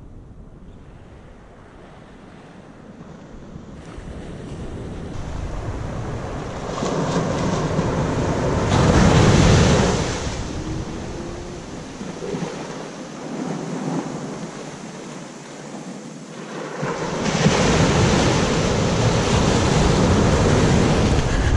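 Small waves breaking and washing up a sandy beach, with wind on the microphone. The surf swells loudest about nine seconds in and again over the last few seconds.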